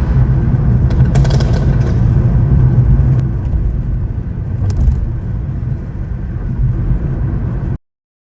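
BMW F10 M5 Competition's twin-turbo V8 running with a steady, deep exhaust rumble, a little quieter in the second half. The sound cuts off suddenly just before the end.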